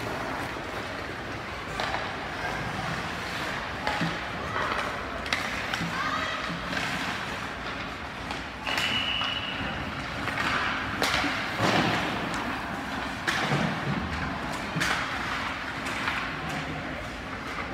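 Indistinct voices in the background with scattered thuds and knocks, and one short, steady high tone like a whistle blast about nine seconds in.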